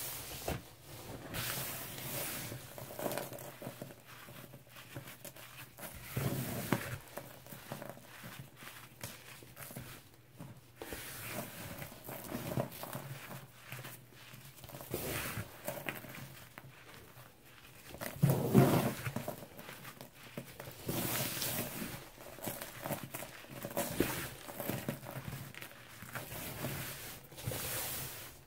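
Hands crushing and crumbling a pressed slab of cleaning powder (lemon Comet, baking soda and chalk): soft crunching as the slab breaks, and powder rustling and pattering as it is squeezed through the fingers. It comes in irregular bursts, the loudest about two-thirds of the way in.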